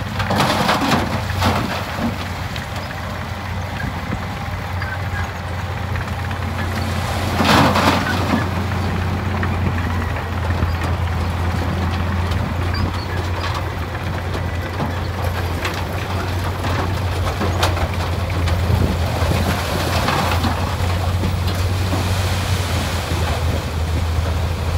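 Dump truck's diesel engine running steadily as it powers the hydraulic hoist tipping the bed, while a load of rock and dirt slides out of the tailgate. Stones rattle and clatter near the start, with a louder rush of falling rock about seven seconds in.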